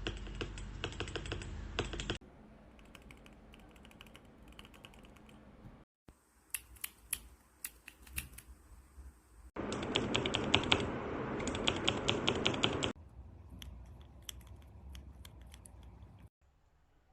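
Gateron MX mechanical keyboard switches on a keychain tester being pressed repeatedly, giving runs of quick sharp clicks. The sound comes in several short spliced segments, with the background noise jumping abruptly between them.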